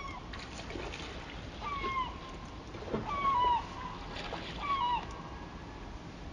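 A gull calling four times, about every second and a half, each call a short drawn note that bends down at its end. Steady rush of river water underneath.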